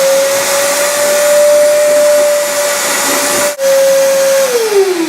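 Wet/dry shop vacuum running with a steady whine over a rush of air while drawing water out of a toilet tank. It breaks off for an instant about three and a half seconds in, and near the end it is switched off, its whine falling as the motor winds down.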